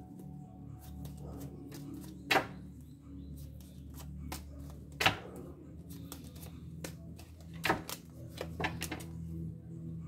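A deck of tarot cards being shuffled by hand: light riffling and clicking of the cards, with three louder sharp clacks about two and a half seconds apart.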